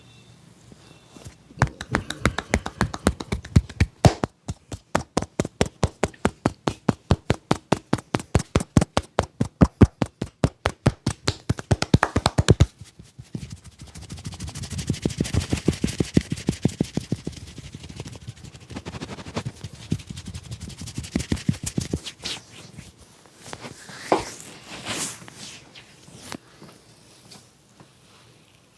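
Percussive massage: a barber's hands strike the customer's head and body in a fast, even rhythm of about five slaps a second for some ten seconds. A quicker, softer run of pats follows until a few scattered taps near the end.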